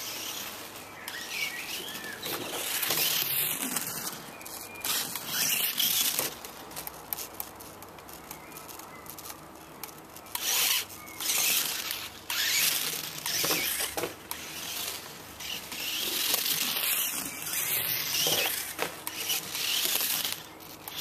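Mini-Z 4WD RC car's small electric motor and drivetrain whining as it drives over stone paving on 3D-printed NinjaFlex spiked tyres, coming and going in several bursts of a few seconds as the car speeds up and passes.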